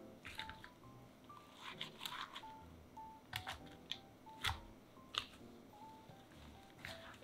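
Thin raw potato slices dropping into a ceramic bowl and being tossed with seasoning powder by gloved hands: soft rustles and a few sharp clicks, the loudest in the second half. Gentle background music with short plinking notes plays throughout.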